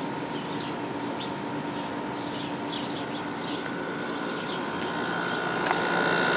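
2001 White-Westinghouse 5,000 BTU window air conditioner, built by WCI with an LG compressor and a GE fan motor, running steadily with its compressor on and cooling. Birds chirp faintly behind it. About five seconds in, the sound grows louder and takes on high steady tones.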